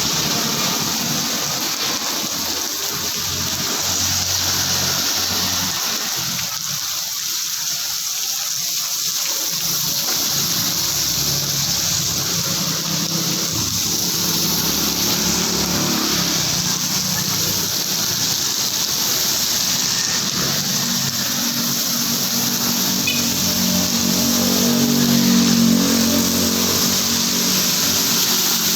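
Heavy rain pouring down steadily. In the second half a vehicle's engine hum rises under the rain, loudest a few seconds before the end, then eases.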